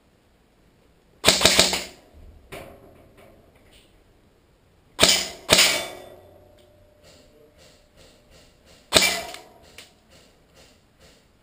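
Airsoft guns firing short bursts of rapid shots: one burst about a second in, two close together near the middle, and one more later, each trailing off in an echo.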